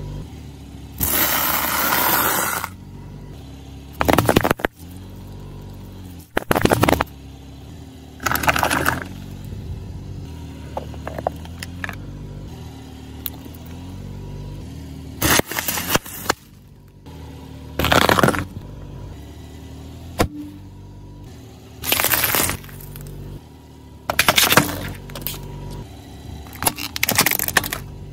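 A car tyre rolling slowly over assorted objects and crushing them, including plastic Play-Doh tubs. There are about nine separate bursts of crunching, cracking and snapping a few seconds apart, over the low steady rumble of the car.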